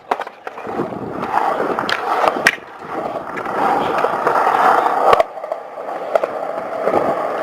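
Skateboard wheels rolling on a concrete skatepark, swelling and fading as the board passes, with sharp clacks of the board at the start, about two and a half seconds in and again a little after five seconds.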